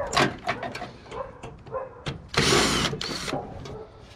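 Clicks and knocks from parts of a computer tower being handled, with one loud scrape lasting about a second a little past halfway.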